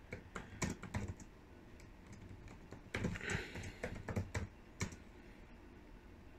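Typing on a computer keyboard: quick key clicks in two short bursts, one at the start and another from about three seconds in, with a pause between.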